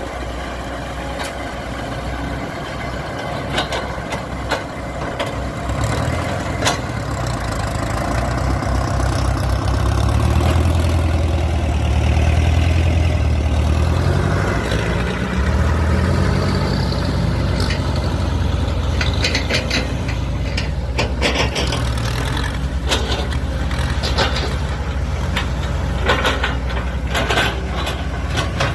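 Engine of earth-moving machinery running steadily, working harder and louder for several seconds in the middle, with a series of sharp metallic clanks and knocks in the second half.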